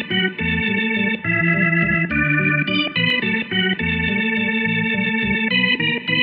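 Background music: sustained keyboard chords that change every half second to a second.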